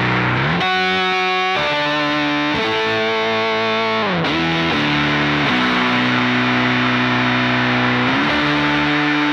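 Electric guitar played through a Kemper Profiler with octave harmonizer effects, distortion and reverb: long held chords stacked in octaves, each change sliding up or down in pitch into the next chord.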